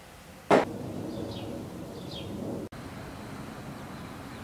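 A sudden sharp knock about half a second in, then a few faint, falling bird chirps over steady background noise, which cuts off abruptly and gives way to a steady outdoor hum.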